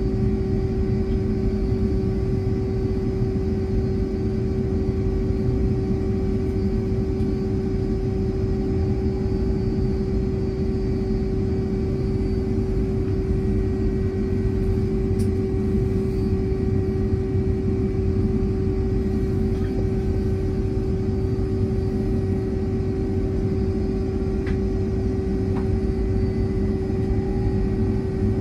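Inside the cabin of a Boeing 757-224 on the ground: a steady low rumble with a constant mid-pitched whine from its Rolls-Royce RB211 engines idling.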